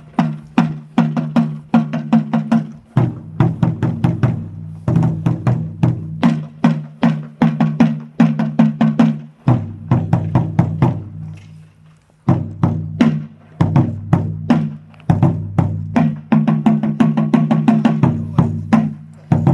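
Music with quick, sharp percussion strikes, several a second, over held low notes that change pitch every few seconds; it starts abruptly.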